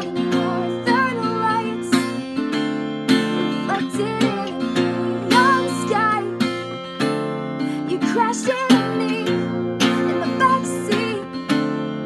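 Steel-string acoustic guitar strummed in steady chords, with a voice singing a melody over it.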